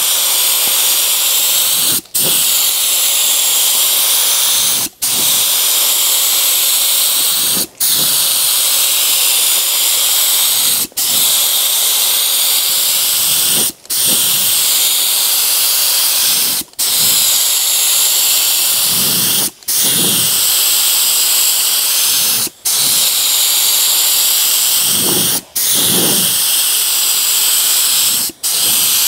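DeVilbiss StartingLine HVLP spray gun with a 1.8 mm tip, run wide open, hissing steadily as it sprays a 4-to-1 high-build primer, cutting out for a moment about every three seconds.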